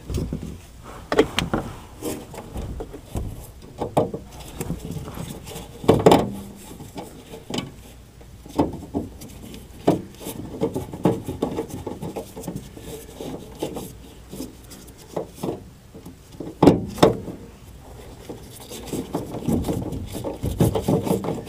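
Irregular knocks, clicks and scraping from hands and a screwdriver on the sheet-metal cabinet of an air handler as the blower assembly is screwed in at the top. The loudest knocks come about six and seventeen seconds in.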